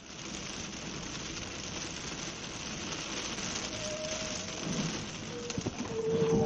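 Steady hiss of heavy rain on the windscreen and wet road, heard from inside a moving car. A faint steady tone sounds briefly about four seconds in, and a lower one comes in near the end, growing louder.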